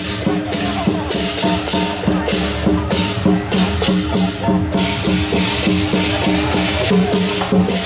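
Music with pitched notes moving at a quick, steady pace over bright shaker- or cymbal-like percussion.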